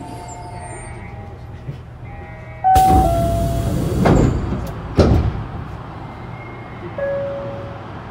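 Osaka Monorail 2000-series train's sliding passenger doors operating while it stands at the platform. About three seconds in comes a sudden loud rush of door movement, then two sharp thumps about a second apart as the doors stop. Short two-note chime tones sound at the start of the movement, and one more tone comes near the end, all over the car's steady low hum.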